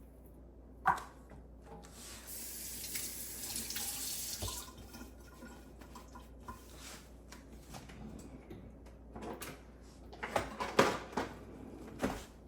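Kitchen tap running into the sink for about two and a half seconds. Near the end comes a run of quick knocks and clinks, a utensil against a bowl as the bananas are mashed.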